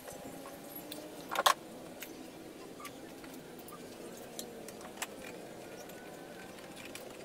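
Metal licence plate clattering as it is picked up and handled against a car's front bumper: one loud rattle about a second and a half in, then a few light clicks.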